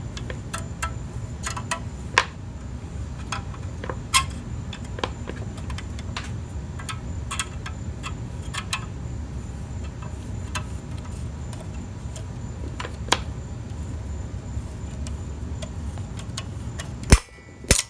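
Scattered light metallic clicks and clinks of a valve spring compressor and hand tools as the exhaust valve spring and keeper are worked into place on a Briggs & Stratton flathead engine, over a steady low hum. Two sharper clicks come near the end.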